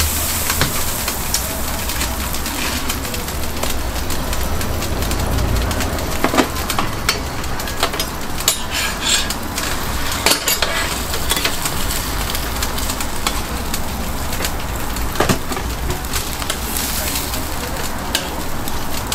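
Egg, bread and ham sizzling steadily in oil on a flat griddle, with a few sharp clicks of metal utensils against the griddle.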